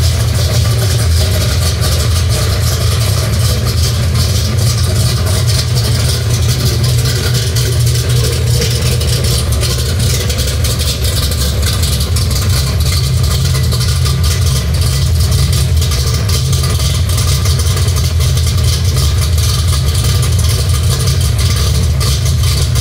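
1969 Ford Mustang Mach 1's V8 engine, fuelled by a Holley Terminator Stealth EFI, idling steadily shortly after a cold start, a deep, even note with no revving.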